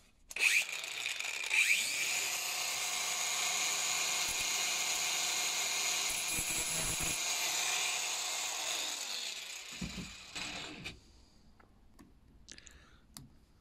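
Small angle grinder spinning up with a rising whine, then running steadily as its disc grinds the shoulder off a steel impact screwdriver bit, and winding down near the end.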